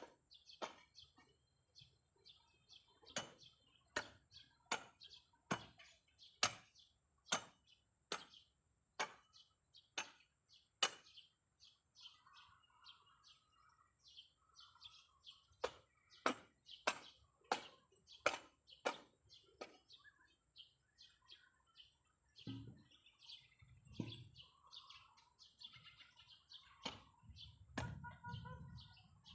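Sharp chopping strikes repeating about once a second, pausing for a few seconds past the middle, with small birds chirping throughout.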